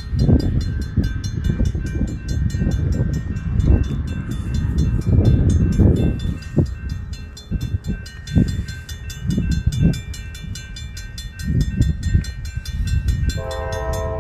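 CSX double-stack freight train rumbling loudly past, with a fast, even high ticking over the rumble. About a second before the end the locomotive horn starts sounding a steady chord.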